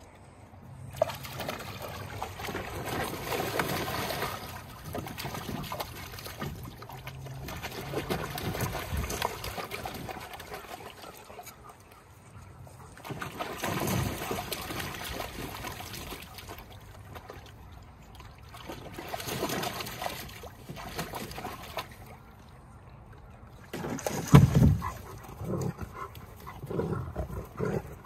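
Water splashing and sloshing in a plastic kiddie pool as a working-line German Shepherd puppy paws and stamps in it, in repeated bouts of a few seconds with quieter pauses between. Near the end a loud low burst as the dogs start play-fighting, with short growling sounds after it.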